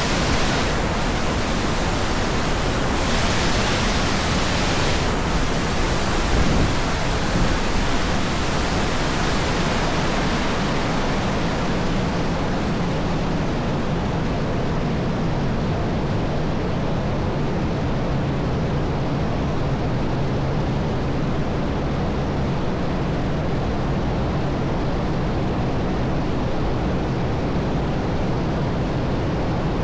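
Waterfall's falling water rushing steadily, a continuous even noise with no break.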